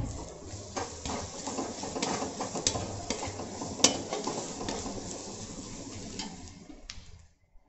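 Steel spatula stirring and scraping an onion-and-spice masala frying in oil in a metal kadai: a steady sizzle with scattered clicks of the spatula against the pan, and a sharper clink just under four seconds in. The sound cuts off near the end.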